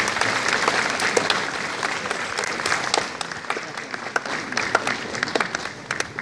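Audience applauding with many hands clapping, dying away gradually toward the end.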